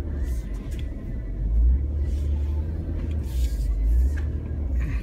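Jeep rolling slowly over a dirt road, heard from inside the cab: a steady low engine and tyre rumble with a few faint rattles.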